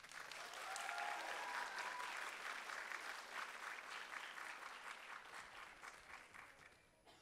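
Audience applauding, building up in the first second and then slowly fading away, dying out near the end.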